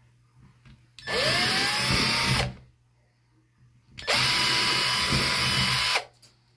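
Hyper Tough cordless drill with a 3/16-inch bit pre-drilling holes into a wall, run in two bursts. The first comes about a second in, its motor whine rising as it spins up and then holding; the second comes about four seconds in and lasts about two seconds.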